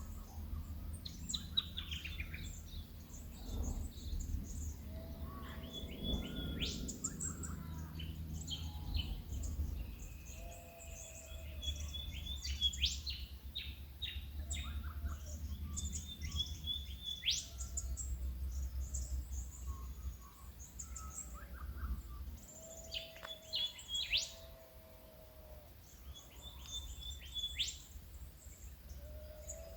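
Early-morning bird chorus in Australian bush: many overlapping high chirps and trills, with a short low whistled note repeated every second or two. A steady low rumble runs underneath.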